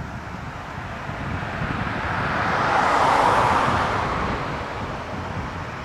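Jet engine noise of a Boeing 787-9 at takeoff thrust on its takeoff roll, a rushing sound that swells to its loudest about three seconds in and then eases a little, with low wind rumble on the microphone underneath.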